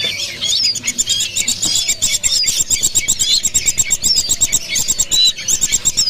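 Many caged birds chirping and twittering at once: a dense run of rapid, overlapping high chirps and short swooping whistles.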